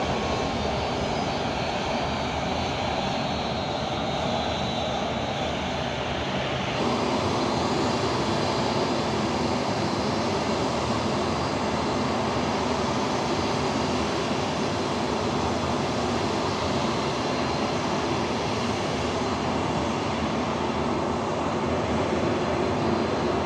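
Boeing C-17 Globemaster III's four Pratt & Whitney F117 turbofan engines running on the ground, a steady jet hum and whine. A high whine slowly falls over the first few seconds, and the sound turns fuller and a little louder about seven seconds in.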